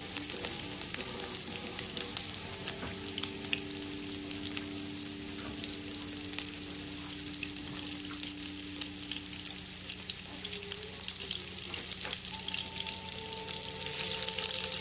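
Crumbled Lightlife plant-based sausage sizzling and crackling in vegetable oil in a hot frying pan. The sizzle grows louder near the end.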